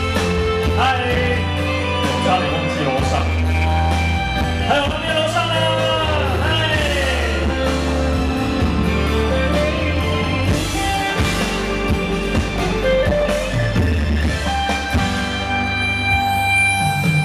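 Live concert performance of a pop-rock song: a singer's voice over band accompaniment with a steady bass line, the vocal gliding in pitch through sung phrases in the first half.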